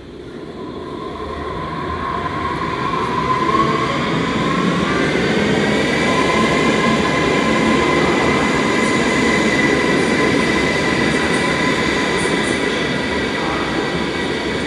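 A train running through a station, growing louder over the first few seconds and then running steadily, with a high whine over the rumble of the wheels.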